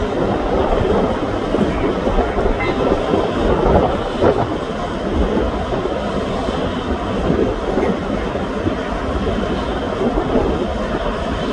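Steady loud mechanical rumble and clatter from running heavy machinery.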